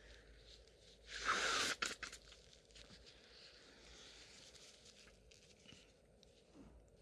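A woman sneezing once about a second in, a short, hissing burst that stops sharply.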